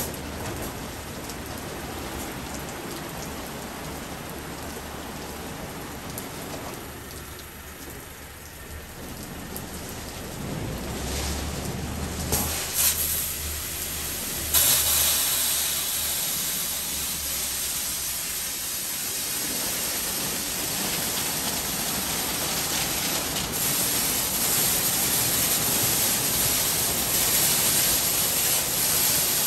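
Automatic gantry car wash running, with rotating brushes and water jets making a steady rushing, hissing spray. Roughly halfway through the spray turns sharply louder and brighter and stays that way.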